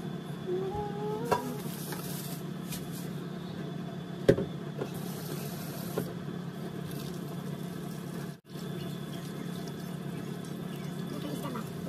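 Soft taps and clicks of canned peach slices being laid by hand into a dish of cream-covered graham crackers, over a steady low hum. The sound drops out for an instant about eight and a half seconds in.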